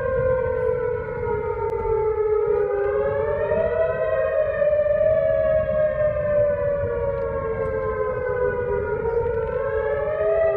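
Outdoor tornado warning sirens sounding a slow wail, their pitch falling and rising over several seconds, with two siren tones overlapping out of step.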